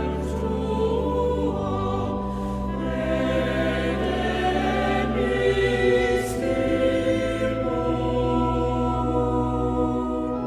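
Background choral music: a choir singing slow, sustained chords that change every few seconds.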